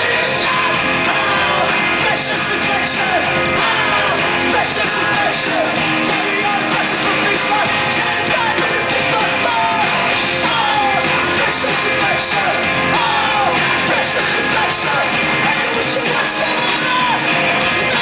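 Post-hardcore band playing live with electric guitar, bass and drums and vocals, loud and unbroken.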